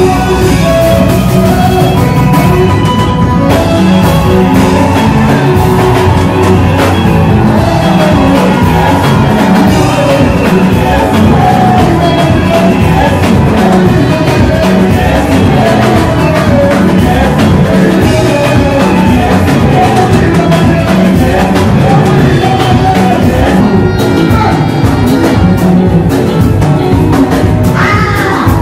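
Loud music with singing.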